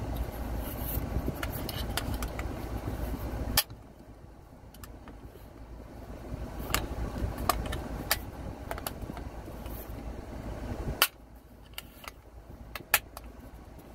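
Small metallic clicks and scrapes as the crown cap of a glass Coke bottle is levered against a clipboard's metal clip, the cap not yet coming off. A steady low rumble in the background cuts out with a sharp click about four seconds in, comes back, and cuts out again with another click near the end.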